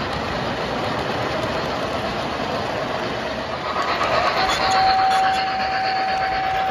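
O-scale model trains running on three-rail track, a steady rumble of wheels over the rails. About four seconds in, a model steam locomotive's sound system starts a long steady whistle that is still sounding at the end.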